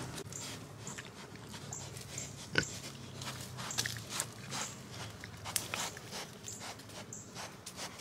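Pigs snuffling and grunting close by as they root in leaf litter, with many short sharp rustles and clicks.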